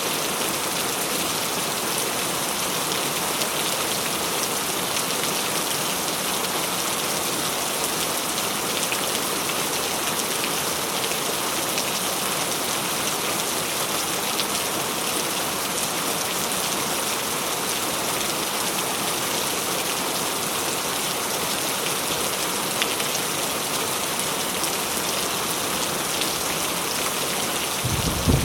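Heavy rain falling steadily, an even hiss of many drops with no change in level. Right at the end a low rumble of thunder starts to build.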